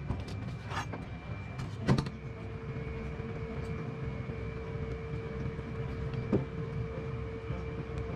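Handling a whole yellowtail in a stainless-steel kitchen sink and on a cutting board: a brief rattle, one loud knock about two seconds in and a lighter knock later, over a steady low hum.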